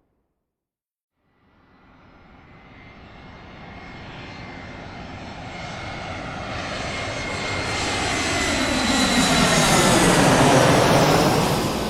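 Airplane flying over: after a short silence its engine noise rises from faint to loud as it approaches, with a steady whine on top, peaks as it passes overhead near the end, and begins to fade.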